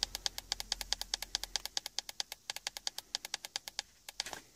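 PNI Escort HP7120 CB radio's channel selector being stepped rapidly, giving an even run of sharp clicks, about eight a second, as the set is taken from channel 20 up to channel 40. The clicks stop shortly before the end.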